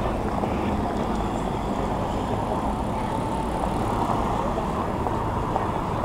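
Steady noise of traffic on a busy city street, with no single sound standing out.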